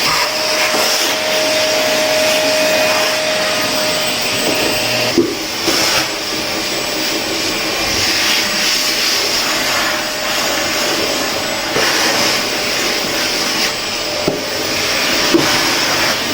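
Vacuum cleaner running steadily, a continuous whooshing hum, with a few short knocks partway through as the nozzle bumps something.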